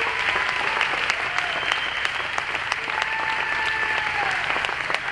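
Audience applauding steadily, with a few faint drawn-out calls from the crowd.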